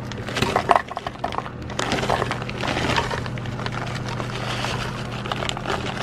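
Frozen berries poured into a glass blender jar: a few scattered clinks, then from about two seconds in a dense clatter of hard frozen pieces knocking against the glass.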